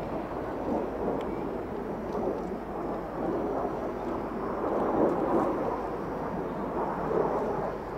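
Jet engine noise from a formation of three Kawasaki T-4 jet trainers passing overhead: a continuous rough rumble with no clear whine, swelling and easing a little.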